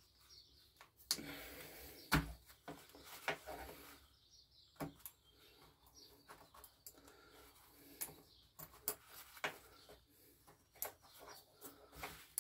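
Faint, irregular clicks and scrapes of a small steel pick prying a carbon-stuck piston ring out of its groove on a two-stroke piston.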